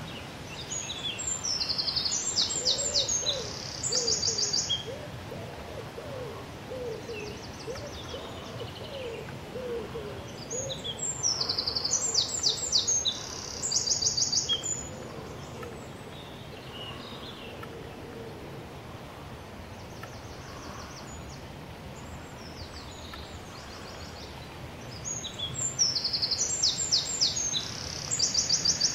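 Outdoor birdsong. A songbird sings a high, rapid trilled phrase three times, about every twelve seconds. A lower-pitched bird calls repeatedly in the first third, over a steady background hiss.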